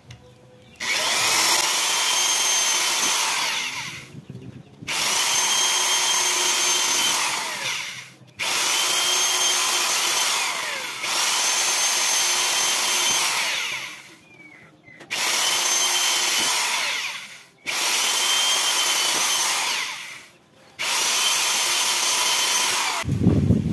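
Electric drill boring a hole through a steel door, run in about seven bursts of a few seconds each with short pauses between, a steady high whine in each run. It is cutting the hole for the door lock.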